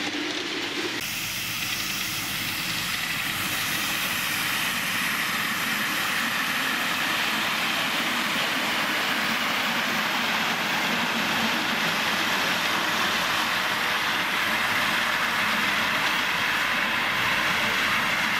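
Miniature 5-inch gauge steam locomotive hauling riding cars along the track, running with a steady hiss.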